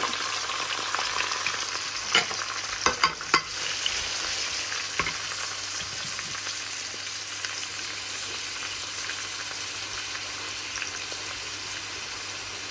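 Sliced onion frying in hot oil with cinnamon and bay leaves, a steady sizzle. It is stirred, with a few sharp knocks of the utensil against the pan about two to five seconds in.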